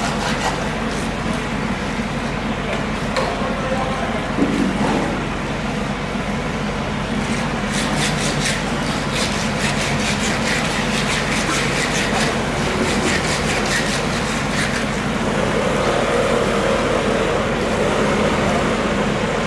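Steady background din of a busy street market: a traffic-like rumble with indistinct voices, and a run of quick clicks in the middle.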